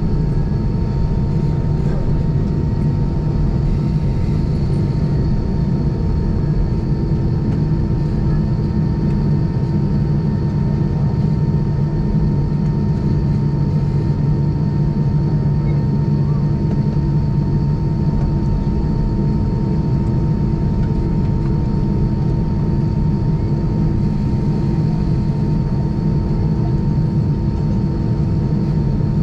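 Steady cabin noise inside an Airbus A320 taxiing on the ground, engines at idle: a low hum with a few steady tones held over it.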